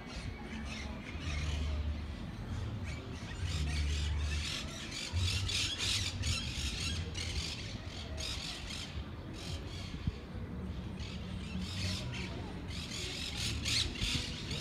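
Birds squawking and chattering in the trees, many short harsh calls in quick succession, over patches of low rumble.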